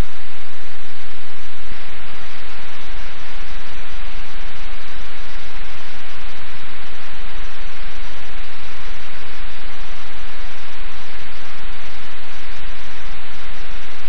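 Loud, steady static hiss with no distinct events. About two seconds in it shifts slightly, taking on more low rumble underneath.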